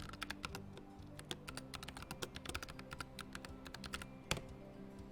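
Rapid typing on a laptop-style keyboard: a quick run of light key clicks with one sharper click about four seconds in, over background music.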